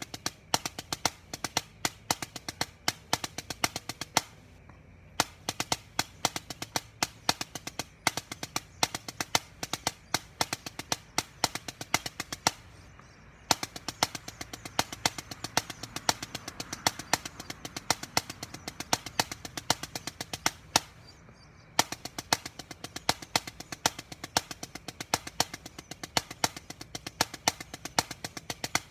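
Drumsticks striking a rubber practice pad, playing a marching-band snare drum cadence as fast, rhythmic taps. There is a very dense run of strokes in the middle, and the playing stops briefly three times.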